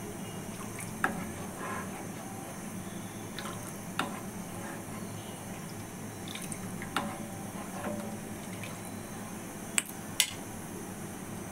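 Plastic spoon stirring a thin watery paste in a nonstick pan, with liquid dripping and sloshing and a few sharp taps of the spoon on the pan, two of them close together near the end, over a steady low hum.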